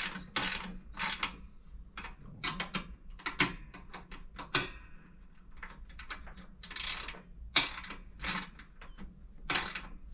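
Ratchet wrench tightening bolts, a short clicking rasp on each back-swing, about two strokes a second with a short pause midway. The bolts are the handle bolts on a new lawn scarifier.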